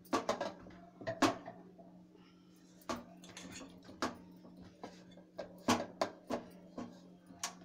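Kitchen handling of stainless steel bowls: a spoon clinking against a steel bowl of dal filling and dough being kneaded in a steel bowl, giving scattered light clinks and knocks over a steady low hum.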